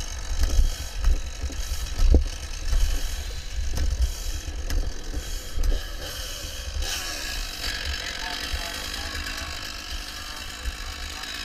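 Fireground noise on a helmet camera: an uneven low rumble with scattered knocks and clatter, the sharpest about two seconds in.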